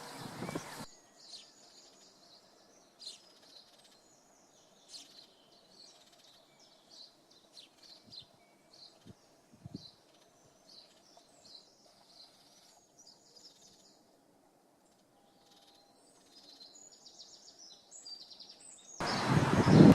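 Small songbirds twittering and chirping in short, high calls. A loud rushing noise cuts off abruptly under a second in and comes back suddenly about a second before the end.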